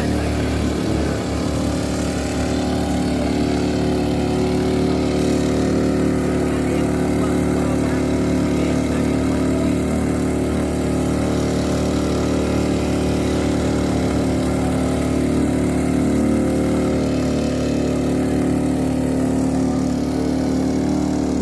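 Small two-stroke petrol engine of a Firman FFP15 floating water pump, 52 cc, running steadily at a constant speed while it pumps.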